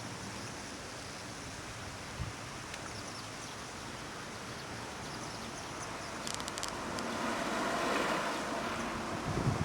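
A road vehicle passing: a rushing noise of tyres and engine that swells to a peak about eight seconds in and then eases, over a steady outdoor background. Low rumbling bumps come in right at the end.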